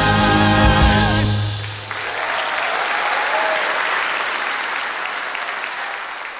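A worship band and string orchestra hold the song's final chord, which cuts off about a second and a half in. An audience's applause follows and slowly fades.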